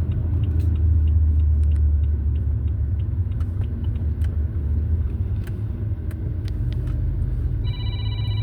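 Steady low rumble of a car in motion, heard from inside the cabin. Near the end a Samsung phone ringtone starts with a bright tone.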